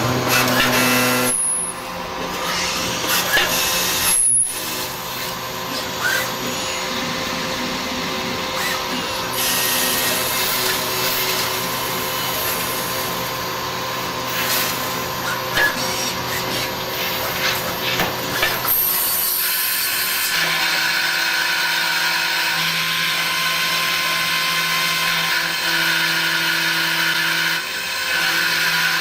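CNC lathe running with a steady mechanical whine and hum. There is a brief break about four seconds in, and about two-thirds of the way through the sound changes to a different set of steady tones.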